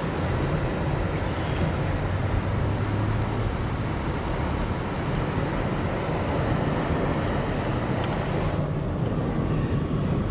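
Steady road and engine noise of a vehicle on the move, an even rumble with no clear events.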